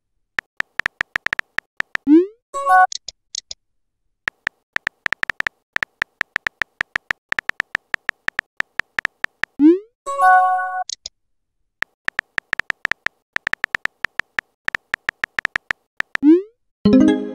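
Texting-app sound effects: runs of rapid synthetic keyboard-tap clicks, each with a thin beep, as messages are typed. Three times they are broken by a short rising swoop and a brief chime as a message bubble is sent or received.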